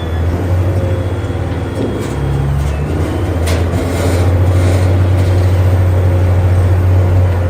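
Heavy diesel earth-moving machine engine running under load with a steady low drone, growing a little louder about halfway through.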